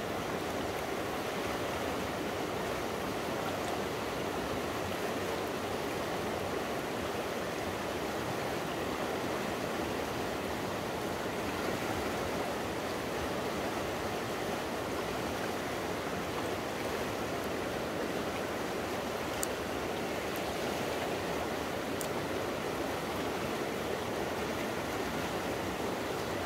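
Shallow river running steadily over stones and riffles. A couple of faint ticks sound about two-thirds of the way in.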